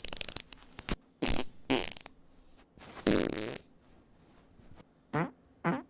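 A string of recorded fart sounds played one after another: a rapid fluttering one at the start, two short blasts, a longer one about three seconds in, and two more short ones near the end.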